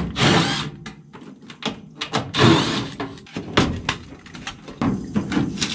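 Sheet-metal parts of a Carrier gas furnace's blower compartment being handled and pulled loose: a run of sharp metal knocks, clunks and scrapes, the loudest about two and a half seconds in.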